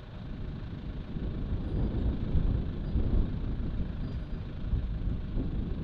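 A vehicle driving: a low rumble of engine and road noise that swells about two seconds in.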